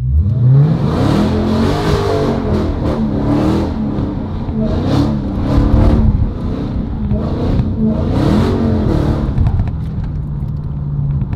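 Supercharged V8 of a Dodge Challenger Hellcat revving hard, its pitch climbing sharply at the start and then swinging up and down again and again as the car is slid, with repeated bursts of rushing tyre noise. Near the end the engine settles to a steadier drone.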